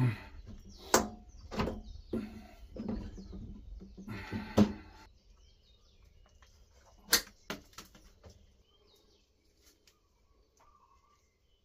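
Hands working at cable terminals: a run of knocks and clicks, with a rasping stretch about four seconds in, as electrical tape is wrapped over a freshly crimped battery-cable lug in place of shrink wrap. One more sharp click comes after about seven seconds, then it goes quiet.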